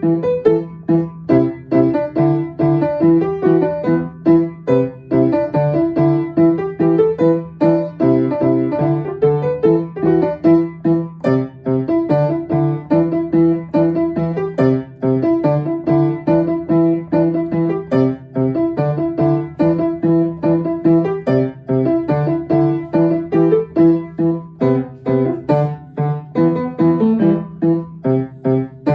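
Solo piano playing a bouncy, up-tempo pop tune with quick, evenly repeated chords over a steady bass line, the notes struck crisply and often.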